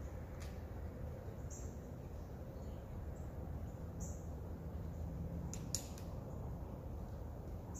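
Outdoor ambience: a steady low rumble, with a few faint high chirps and a brief soft click a little before the end.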